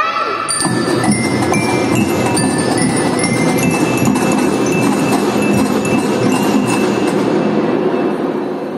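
Children's marching drum band playing music: a melody of high held notes stepping from note to note over a dense, steady band sound.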